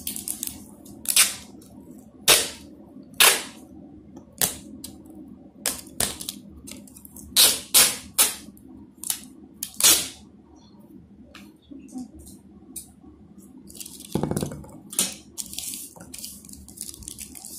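Adhesive tape ripped off the roll in short, sharp pulls, about ten of them over the first ten seconds, as it is wound around a bottle cap. Fainter tape and handling noises follow.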